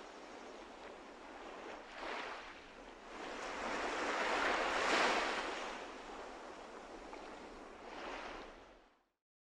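Sea waves washing in, swelling three times, the biggest about five seconds in, then fading out near the end.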